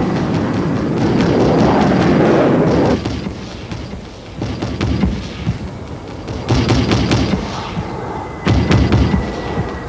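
Steady aircraft noise, then a 40 mm Bofors L70 anti-aircraft gun firing three short bursts of rapid shots, about four or five a second.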